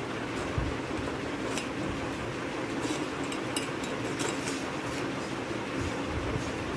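Metal spoon scraping and pressing flour through a stainless steel mesh sieve, a short scratch about once a second over a steady hum.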